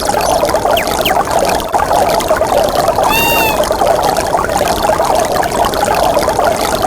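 A Samsung SGH-E800 ringtone playing: a continuous rushing, water-like sound with a short arched chirp about three seconds in.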